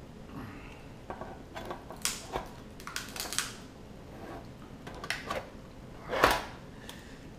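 Shell of a steamed red king crab cracking and snapping as it is broken apart by hand, a run of irregular crunches and clicks with the loudest crack about six seconds in.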